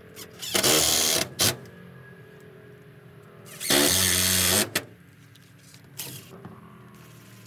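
Cordless drill driving screws into a wooden coop door frame. It runs in two bursts of about a second each, one near the start and one about halfway, with a short blip after the first and a brief one near the end.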